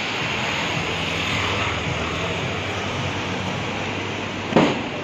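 Busy street noise: a steady wash of traffic and passers-by, with one sharp thump near the end.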